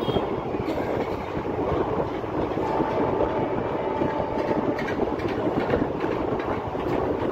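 Indian Railways passenger coach running on the rails, heard from the open doorway: a steady rumble of wheels on track with clickety-clack over the rail joints. A thin, faint whine from about three to five seconds in, likely the wheels squealing as the train takes the curve.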